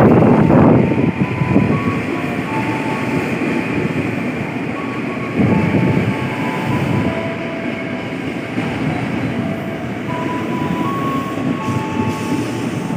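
KRL Commuter Line electric train 6018 running in along the platform and slowing to a stop: a steady rumble of wheels on rail, loudest in the first second, with a whine of the traction motors that steps from one pitch to another.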